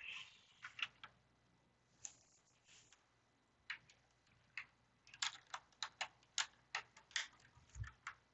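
LEGO plastic pieces clicking and rattling as they are handled and pressed onto a model: a string of sharp little clicks, scattered at first and coming thick and fast about five to seven seconds in, with a soft low thump near the end.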